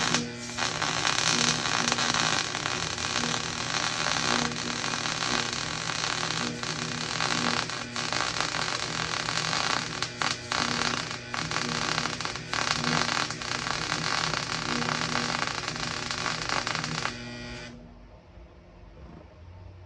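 Electric arc welding: a steady, loud crackling arc with an electrical hum under it, running a bead on a steel plate. It breaks off briefly twice about ten seconds in and stops suddenly about 17 seconds in.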